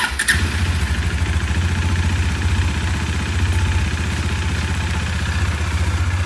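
Bajaj Dominar 400's single-cylinder engine starts on the electric starter and settles into a steady, evenly pulsing idle. It is running with an engine-oil flush additive mixed into the oil, to loosen dirt before the oil is drained.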